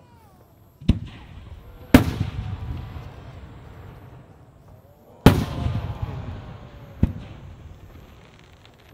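Aerial firework shells bursting overhead: four sharp bangs, the loudest about two seconds in and about five seconds in, each followed by a rolling rumble that dies away.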